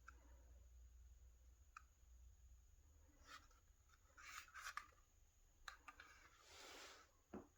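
Near silence, with a few faint clicks and a brief rustle near the end: quiet handling noise.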